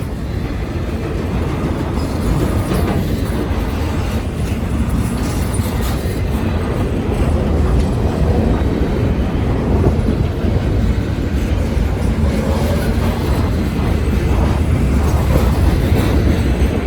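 Freight train passing close by, a steady low noise of its cars' steel wheels rolling on the rails that grows slightly louder.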